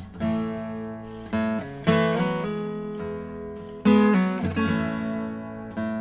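Background music on acoustic guitar: strummed chords, a fresh chord struck every second or two and left to ring down.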